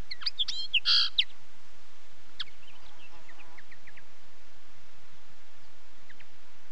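Common linnet singing: a quick burst of twittering chirps in the first second or so, then a few fainter scattered notes, over a steady background hiss.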